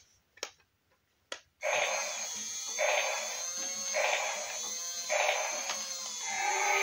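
Battery-powered walking dinosaur toy: two faint clicks in near silence, then from about a second and a half in, electronic sound effects from its small built-in speaker, swelling about once a second over a steady high whine from its walking motor.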